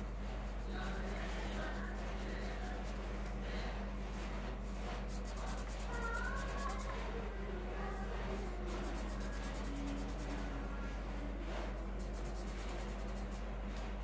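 Marker pen scratching on paper in quick back-and-forth colouring strokes, coming in spells, over a steady low hum.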